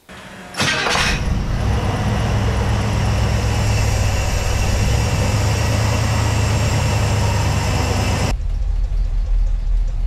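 International Scout V8 cranking briefly and catching about half a second in, then running steadily at idle. About eight seconds in the sound turns abruptly duller, leaving only the low rumble, as heard from inside the cab. The owner suspects a failed cam bearing and dry-running rocker assemblies in this engine.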